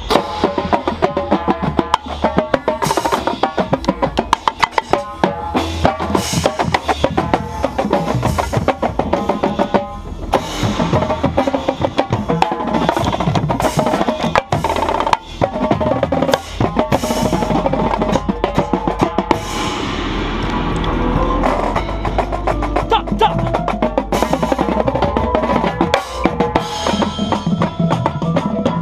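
Indoor marching percussion ensemble playing: marching tenor drums close to the microphone, with snare and bass drums, in fast, dense strokes.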